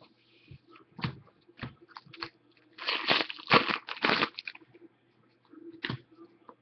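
Trading cards and a foil card-pack wrapper being handled: short crisp clicks and rustles, with a denser burst of crinkling about three to four seconds in.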